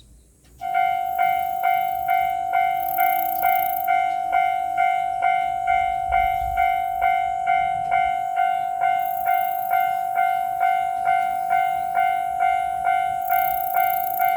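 Japanese railway level-crossing warning bell ringing its electronic 'kan-kan' ding over and over, a little over two strikes a second, starting about half a second in. It signals that the crossing has activated for an approaching train.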